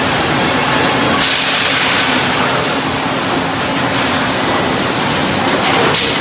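Sawmill machinery running loudly: a steady mechanical din from the head rig, log carriage and conveyors. A harsher hiss sets in about a second in and lasts a few seconds, then comes back briefly near the end.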